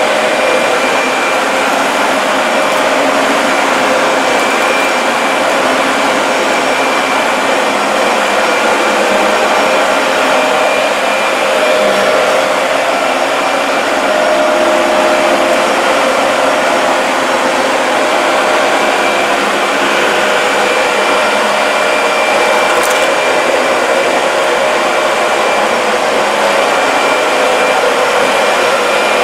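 Dyson DC40 MKII upright vacuum cleaner running steadily on a rug: a loud, even rush of suction with a motor whine whose pitch wavers slightly as it is worked.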